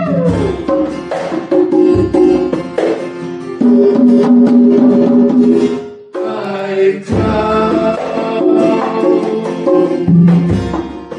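Instrumental music with drum strokes and sustained pitched notes, dipping briefly about six seconds in.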